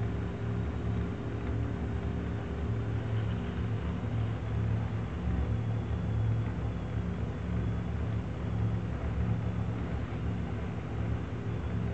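Electric aquarium filter pump running in bathtub water: a steady low hum over an even wash of noise.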